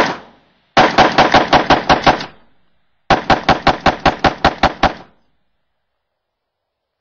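Unsuppressed Rock River .308 rifle with a Tromix Shark muzzle brake firing: one shot, then two rapid strings of about ten shots each, roughly seven a second.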